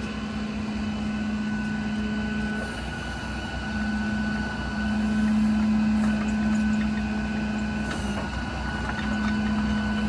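Cummins diesel engine of a Ram 5500 service truck running steadily to power its hydraulic IMT crane while the boom is worked. Its low hum drops away briefly twice, about three seconds in and again near the end, as crane functions start and stop.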